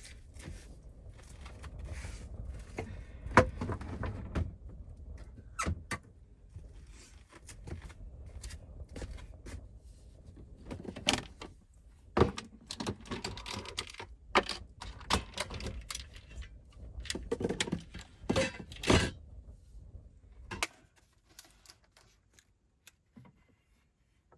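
Irregular clicks, knocks and thunks, as of objects being handled and set down, over a low rumble that stops abruptly near the end.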